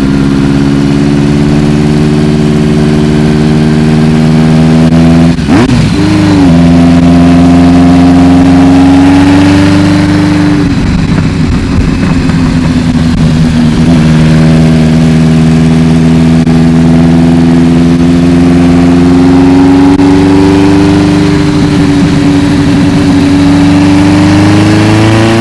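Air-cooled inline-four engine of a Honda CB Seven Fifty running through a loud aftermarket exhaust while riding. The note holds mostly steady with a short break about five seconds in and a rougher dip around the middle, then climbs sharply near the end.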